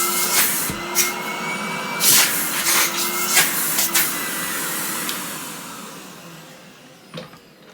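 1988 Numatic James JVR225 vacuum cleaner running with a steady rush of air and a faint motor whine, with several sharp knocks in the first few seconds. About five seconds in the sound dies away as the motor winds down.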